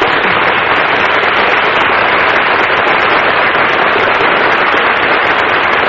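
Studio audience applauding steadily, a dense, even clapping.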